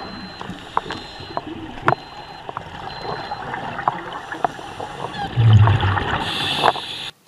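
Underwater scuba sound: bubbles gurgling and rushing from a diver's regulator as he breathes out, with scattered clicks and a louder rush of bubbles late on.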